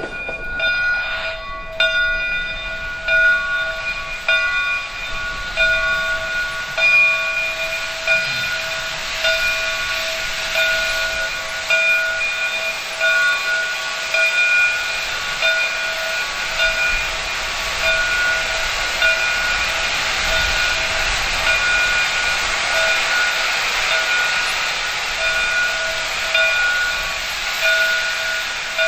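Steam hissing from the cylinder cocks of Southern Railway 2-8-0 steam locomotive No. 401, a steady loud hiss. Over it a ringing tone repeats about once a second.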